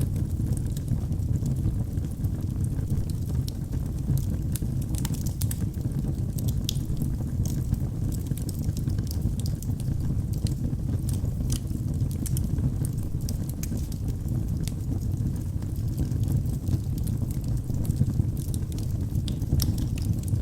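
Wood fire burning in a fireplace: a steady low rumble of flames with irregular small crackles from the burning wood throughout.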